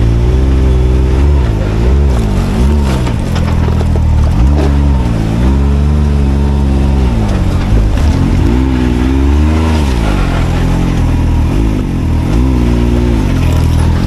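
Can-Am Maverick X3 side-by-side's three-cylinder Rotax engine running under way, its pitch rising and falling again and again, six or seven times, as the throttle is worked on and off.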